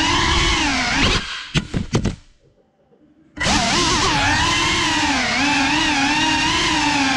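Brushless motors and propellers of a Cinelog 35 FPV cinewhoop drone whining, the pitch wavering as the throttle changes. About a second in the throttle drops with a few short blips and the motors go almost silent for about a second, then spin back up sharply.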